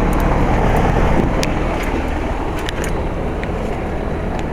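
1999 Rheem 4-ton heat pump's outdoor condensing unit running in cooling mode: a steady, loud low hum and rush of the compressor and condenser fan, with a few light clicks.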